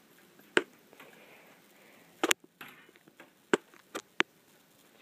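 About five sharp knocks at uneven intervals, with faint room noise between them.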